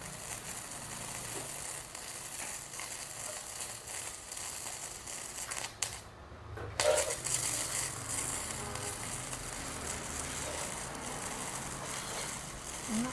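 MIG welding arc from a Kobe 315A welder crackling steadily as a bead is run on thin box-section steel. It stops briefly about halfway through, then starts again.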